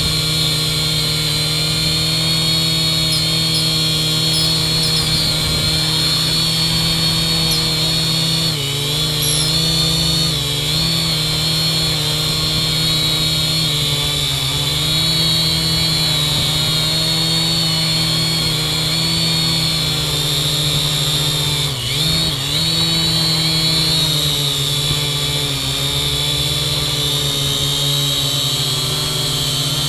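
Kaideng K70C quadcopter's motors and propellers buzzing steadily in a hover, heard from the GoPro mounted on the drone. The pitch dips briefly a few times, most clearly about two thirds of the way in.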